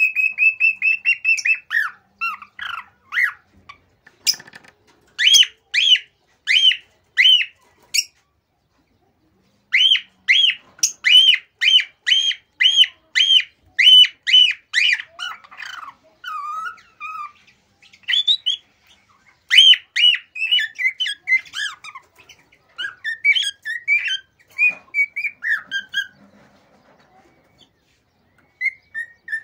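Male cockatiel singing excitedly: strings of loud, repeated whistled notes, roughly one to two a second, broken by short pauses.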